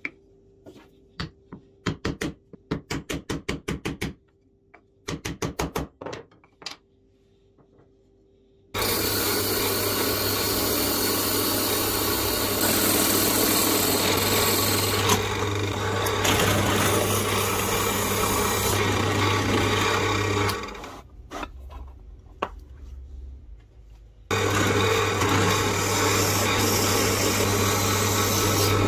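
Quick series of hand strokes rubbing the edge of a small plywood part. Then a benchtop drill press runs steadily, boring a twist drill into a pine block. It stops about 20 seconds in and starts again about 24 seconds in.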